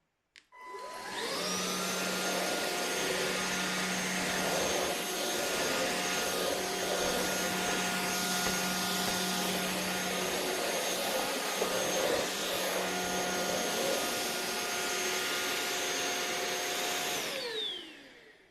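Anyson cordless stick vacuum cleaner switched on: its motor whine climbs quickly to a steady high pitch over a loud rush of air and runs steadily. About 17 seconds in it is switched off and the whine falls away as the motor spins down.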